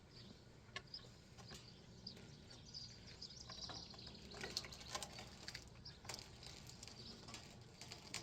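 Faint scattered knocks and scrapes as a pine log is rolled over on the sawmill bed, with birds chirping faintly.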